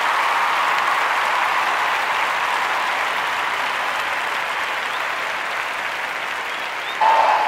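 A large arena audience applauding, a steady dense wash of clapping. Near the end a sudden louder held note cuts in over it.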